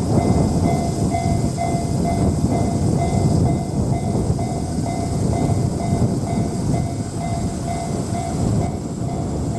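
Japanese railroad crossing warning bell ringing in an even "kan-kan" rhythm, about two dings a second, over the loud rumble of a train passing over the crossing.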